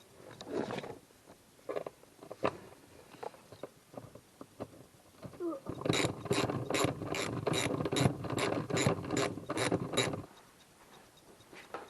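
Socket ratchet wrench being worked on a bolt: a few scattered knocks and clicks, then a steady run of ratchet clicks at about three a second for some four seconds before it stops.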